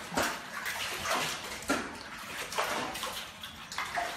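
Floodwater being scooped off a concrete floor with a metal bowl and poured into a plastic bucket: several splashing pours, each starting suddenly, about a second apart.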